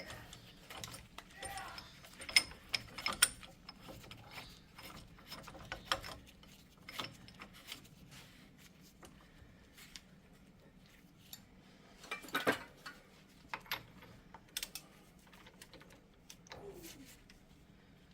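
Irregular metallic clinks and clanks of hand tools as a bearing puller and pry bar are repositioned on a Jeep's front hub to press out a seized wheel bearing. There are two sharp knocks about two and three seconds in and a flurry of clanks about twelve seconds in.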